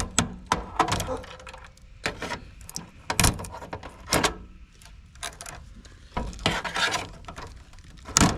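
Irregular clicks, snaps and small clatter of connectors being popped off a heat pump's defrost control board by hand.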